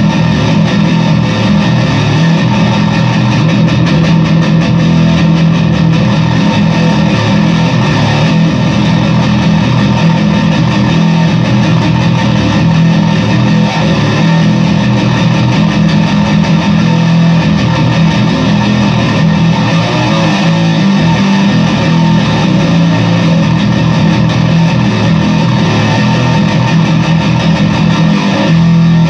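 Fender Squier Bass VI, a six-string baritone bass, played continuously through a ProCo RAT distortion pedal, giving a loud, thick, heavily distorted tone.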